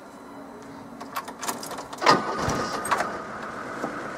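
Diesel engine of a Mercedes T1 209D van starting, heard from inside the cab: a sudden loud burst about two seconds in as it cranks and catches, then it runs on.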